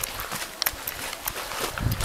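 Footsteps of people walking on the forest floor, irregular crunching steps and clicks, with a heavier low thump near the end.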